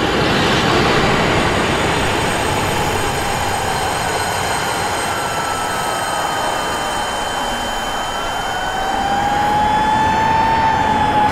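Dense, loud rushing roar like heavy traffic, with steady high ringing tones over it. Slow siren wails glide in pitch, one rising and swelling in the last few seconds.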